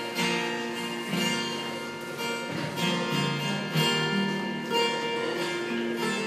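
Two acoustic guitars playing a slow, unaccompanied intro, strummed about once a second with the chords ringing on between strokes.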